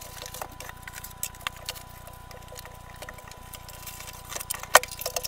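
Cardboard box and foam packing being handled: scattered light knocks and rustles, with one sharper knock near the end, over a faint steady hum.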